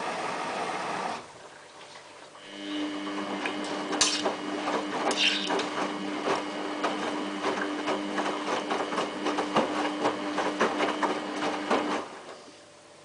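Samsung WF8804RPA front-loading washing machine in its first rinse. A steady rushing sound stops about a second in. After a short lull the drum turns with a steady motor hum while the wet laundry tumbles with irregular knocks and clicks, and it stops about a second before the end.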